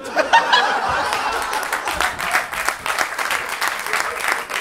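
Audience laughing and applauding in reaction to a joke: a burst of laughter at the start, then sustained clapping.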